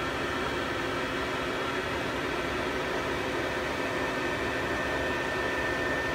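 Steady whir of cooling fans and powered electrical gear in the open electrical cabinet of a Hurco TM6 CNC lathe: an even hiss with a few constant tones over it.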